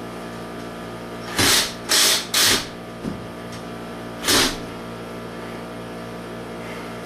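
Power drill-driver run in short bursts, three close together and then one more, snugging up screws in wall anchors to tighten a shelf bracket.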